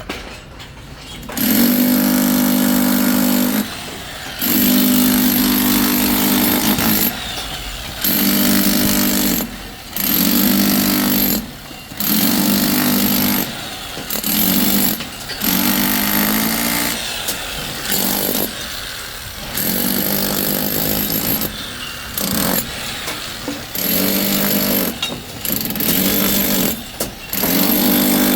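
A power tool on a building site running in repeated bursts of about one to three seconds, started and stopped around a dozen times, with a steady buzzing pitch under each burst.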